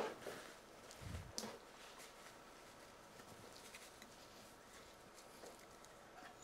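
Near silence: studio room tone, with a faint dull knock about a second in and a light tap just after.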